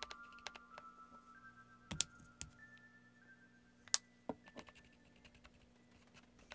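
A few sharp clicks of a paintbrush tapping against a paint palette while paint is mixed, the loudest about two and four seconds in, over quiet background music with soft held notes.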